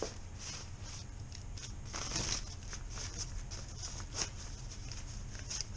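Irregular rustling and light clicks, a slightly louder rustle about two seconds in, over a steady low hum.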